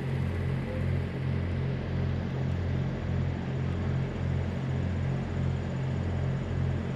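Bass-heavy music with a steady pulsing beat.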